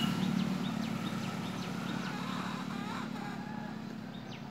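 Birds calling in the morning: many short, high chirps and squiggly whistles over a steady low hum that slowly fades.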